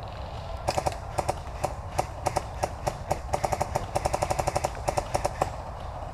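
Airsoft guns firing in bursts of rapid shots, a quick run of about ten shots a second in the middle.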